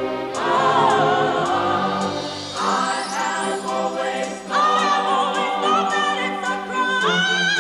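Classical choral music: voices singing long held notes with vibrato, in an operatic style.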